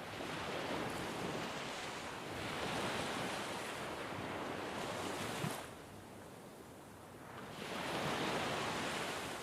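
Ocean surf washing onto a beach in slow surges. One long wave runs through the first half and drops away about halfway through, and the next one builds near the end.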